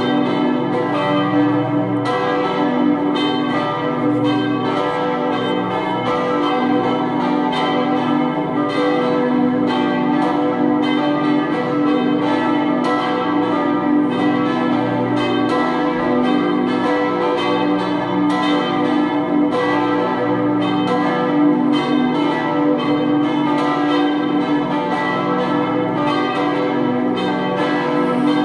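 Several swinging church bells ringing together without a break. The strikes come every fraction of a second and overlap, so the tones mix.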